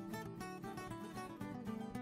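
Background music of plucked and strummed acoustic guitar, with quick notes over a steady bass.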